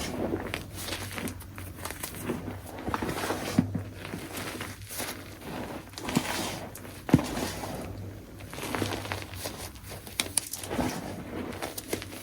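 Soft, crunchy chunks of gym chalk being crushed: uneven crumbly crunching in repeated squeezes, with sharp crackles and a few louder snaps scattered through it.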